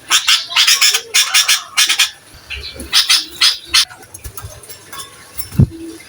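Sooty-headed bulbul (kutilang) calling in quick clusters of rapid notes over the first four seconds, then falling quiet, with a single low thump near the end.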